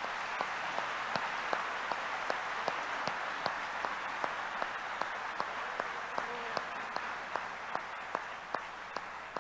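Congregation applauding, with one person's close, steady hand claps standing out at about two and a half claps a second. The applause thins slightly toward the end.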